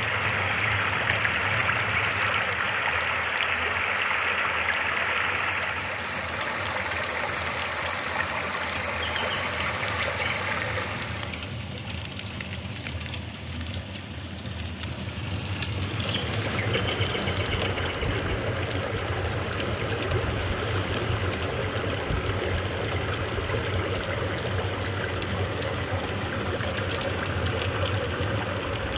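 Steady water noise, shifting abruptly in level and character a few times.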